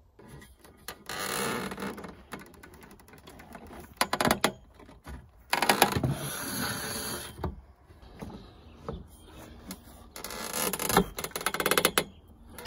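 Steel fence top rail being pulled by hand through a hoop-bending jig to bend a greenhouse hoop: metal scraping and creaking against the jig in several bursts of one to two seconds, each with fast rattling clicks.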